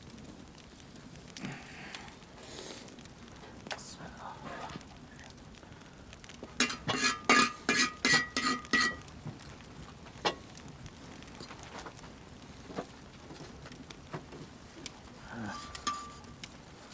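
Wooden rolling pin rolling out flatbread dough on a floured metal board, knocking against it. A little past the middle comes a quick run of about ten ringing metallic clinks, with a few softer knocks before and after.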